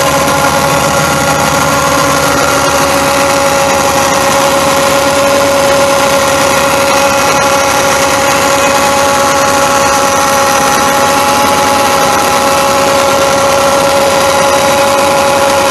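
A Ford F550's 6.0L V8 turbo diesel engine running steadily, with a constant whine over the engine sound.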